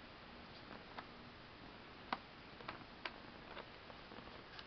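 Scattered light clicks and taps from kittens playing with a cardboard scratcher and a plastic ball-track toy, over a faint steady hiss. The sharpest tap comes about two seconds in.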